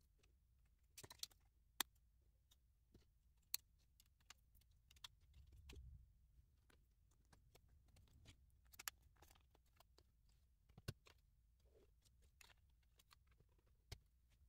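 Faint, scattered clicks of plastic LEGO pieces being handled and fitted together, with a soft rustle of handling about halfway through.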